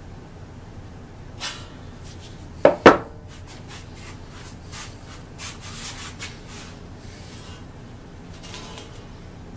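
Handling noise at a saw vise as a Dunlop saw set is worked on the teeth of a crosscut handsaw: two sharp metallic clicks close together about three seconds in, with light rubbing and scraping before and after.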